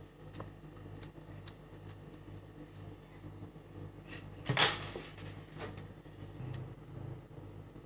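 Light clicks and taps of small items being handled on a workbench during an electronics repair, with one louder clatter about four and a half seconds in, over a faint steady low hum.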